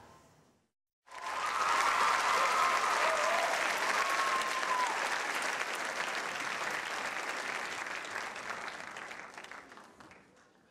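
Theatre audience applauding, with some cheering, after a dance routine ends: the applause breaks out suddenly about a second in after a brief silence, then slowly dies away near the end.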